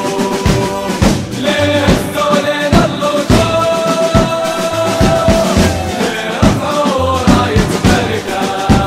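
Football ultras chant track: a group of voices singing in unison over a steady drum beat.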